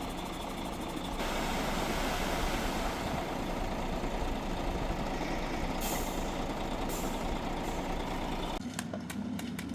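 A heavy truck's engine running steadily, growing louder about a second in, with two short hisses of air partway through. Near the end the engine noise cuts off abruptly and is replaced by a few scattered clicks and knocks.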